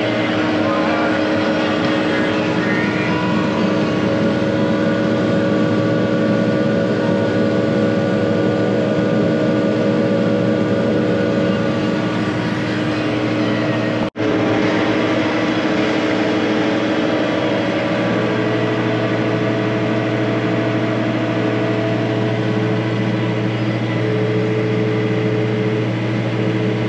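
Tractor engine running steadily under load, heard from inside the cab while pulling a seed drill across the field. The drone breaks off for an instant about halfway through.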